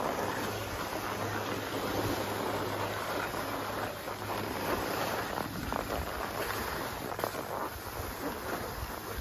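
Skis sliding over groomed snow on a downhill run, a steady scraping hiss with a low rumble of wind on the microphone.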